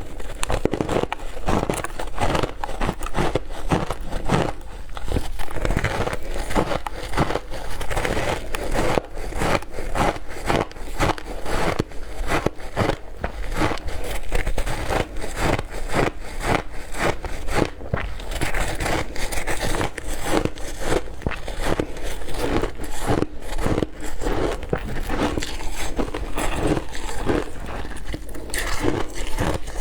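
A person crunching ice in the mouth close to the microphone: a dense, unbroken run of sharp crackling crunches, several a second.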